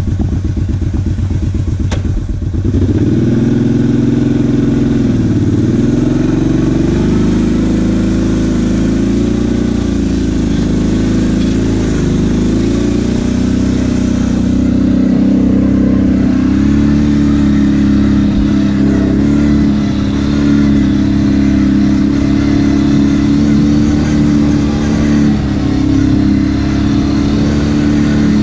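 Kawasaki KFX 700 ATV's V-twin engine under way, running low and steady for the first couple of seconds, then louder from about three seconds in, its pitch rising and falling with the throttle before settling steadier in the second half.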